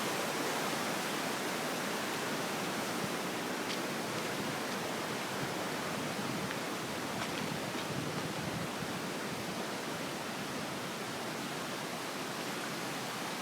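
Steady rushing noise of the swollen, flooding Bronx River flowing past.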